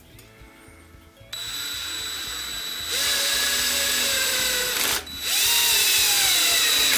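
Power drill driving a screw through a steel hinge into plywood: the motor starts about a second in and runs with its pitch slowly falling, stops briefly, then runs again.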